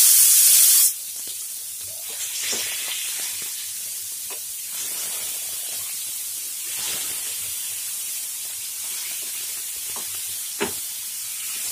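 Marinated mutton tikka pieces sizzling in very hot oil in a frying pan as they are laid in. A loud hiss in the first second as the first piece hits the oil, then a steady sizzle at high heat with scattered sharp pops and one sharper tick near the end.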